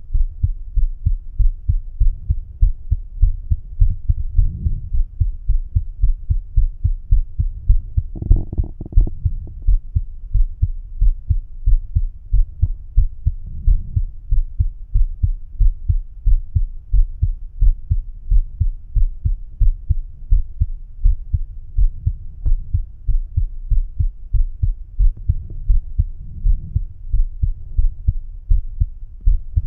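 A man's own heartbeat heard through a stethoscope bell at the mitral area (apex): a steady, even run of low lub-dub beats. A brief rustle breaks in about eight seconds in.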